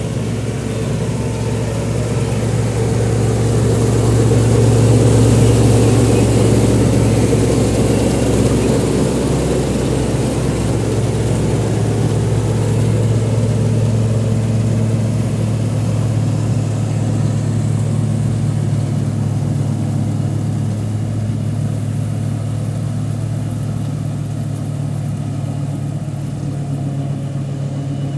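Tractor engine running steadily under load, driving a straw chopper machine in a wheat field; the engine hum grows louder about five seconds in, then slowly eases off.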